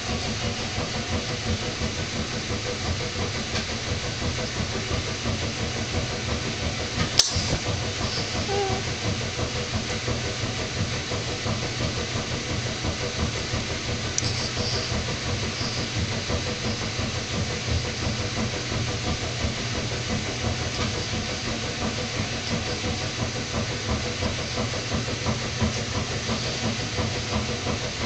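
Steady background hiss with a constant low hum, and one sharp click about seven seconds in.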